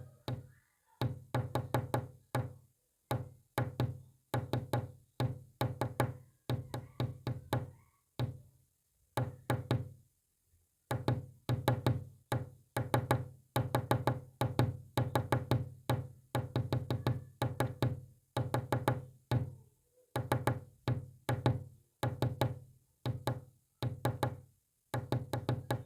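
Rapid tapping clicks in short bursts separated by brief pauses, a Morse code message being tapped out. There is a longer pause about eight seconds in.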